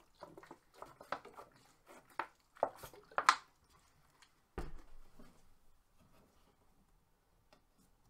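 Plastic water bottle crinkling and crackling as it is squeezed to squirt water into a gas furnace's condensate trap tubing, refilling the trap. A dull thump comes about four and a half seconds in, followed by faint handling sounds.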